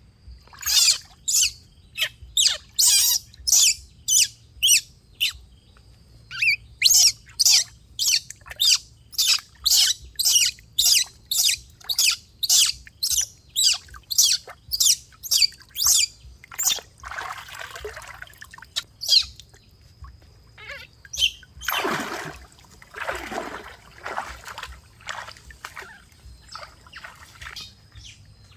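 A rapid series of short, shrill animal calls, about two a second, thinning out after the middle. Two longer rushing noises come in the second half.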